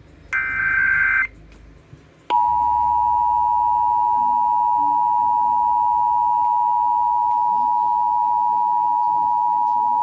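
Emergency Alert System tones: a short, harsh digital data burst (the SAME header) about a second in, then the steady two-tone attention signal (853 and 960 Hz together) starting a little over two seconds in and holding level. It marks the start of a monthly EAS test broadcast, heard from a radio web stream through a laptop speaker.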